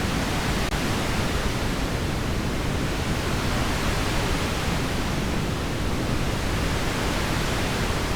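Heavy rain falling steadily, an even hiss without breaks.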